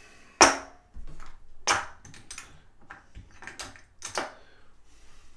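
Casino chips being handled at the table's chip rack: a string of five or six sharp clacks, the loudest about half a second in.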